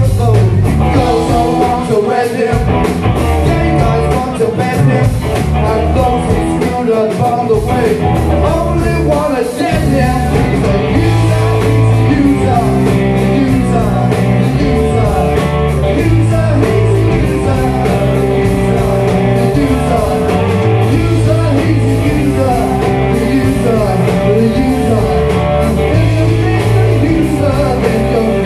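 Live rock band playing with sung male vocals: electric guitars, bass, drums and keyboard.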